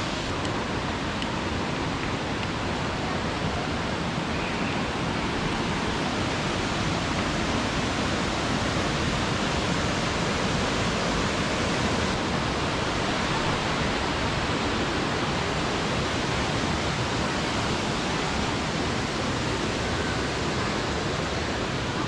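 Waterfall rushing without a break: a steady, even hiss of falling water.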